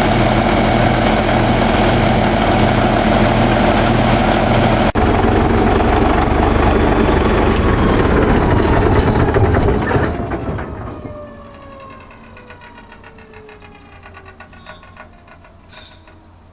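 Caterpillar D9G bulldozer's diesel engine running loudly and steadily, then shut down about ten seconds in: the engine note drops away and a whine falls steadily in pitch as it winds down.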